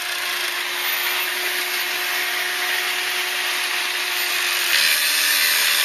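Electric angle grinder running continuously with its disc grinding into a metal bar: a steady motor whine under a hissing grind. About five seconds in, the whine drops in pitch and the sound gets a little louder as the disc takes more load.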